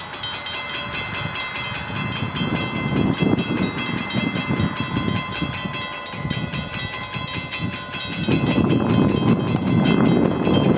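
Norfolk Southern freight train of empty auto-rack cars rolling through a grade crossing. The cars give a low rumble, louder from about eight seconds in, under steady high ringing tones and a rapid, even clicking.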